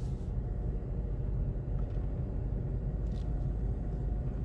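A steady low rumble of outdoor background noise with no clear events.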